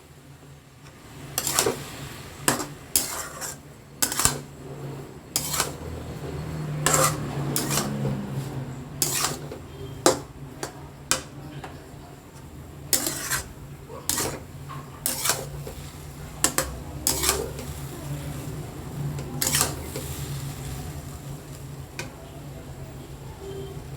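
A spoon stirring and scraping semolina upma in a kadai, with irregular clinks and scrapes of metal against the pan. The clinks stop near the end, leaving a low steady hum.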